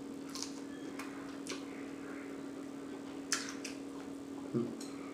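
Close-up eating sounds of mouth smacking and chewing: scattered sharp wet clicks, about half a dozen, the loudest a little over three seconds in, over a steady low hum.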